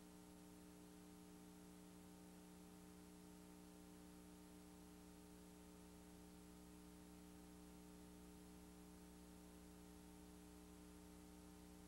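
Near silence: a faint, steady electrical hum with hiss that does not change.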